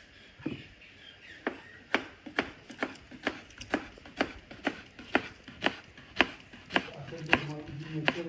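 Knife chopping food on a cutting board, a steady run of sharp strokes about two a second.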